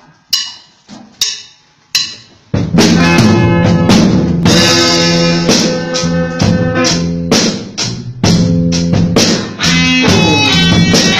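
A drummer counts in with sharp clicks a little under a second apart, then about two and a half seconds in the full band comes in together: drum kit with electric guitars and bass guitar playing a slow song.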